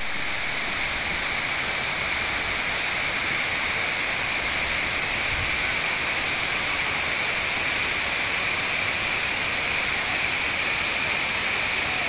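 Klong Lan Waterfall's falling water rushing in a steady, unbroken wash of noise, with a steady high-pitched band over it.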